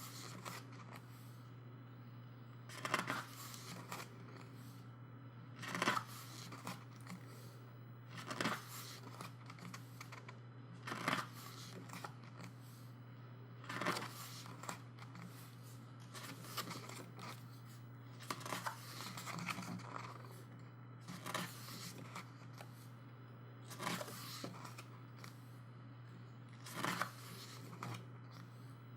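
Pages of an album photo book being turned one after another, a short papery swish about every two to three seconds, over a steady low hum.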